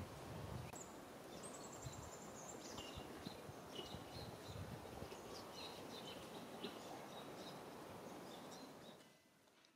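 Faint outdoor ambience with a bird chirping and giving a short trill, over a low steady rumble; the sound fades out near the end.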